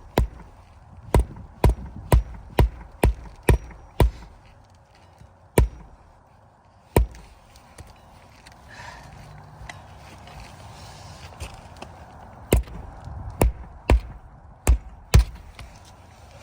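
Hammer striking roofing nails into asphalt shingles: a run of sharp blows at about two a second, two single blows, a pause, then another run of five near the end.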